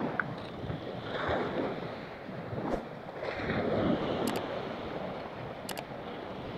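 Wind buffeting the microphone over waves washing at the shoreline, swelling and easing. Two quick double clicks sound about four and six seconds in, the mouse clicks of a subscribe-button animation.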